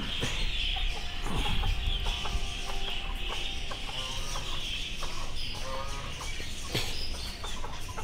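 Chickens clucking in short, scattered calls.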